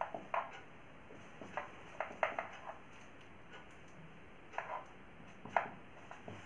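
Whiteboard marker writing on a whiteboard: short, irregular tapping and scratching strokes in small clusters as each character is drawn.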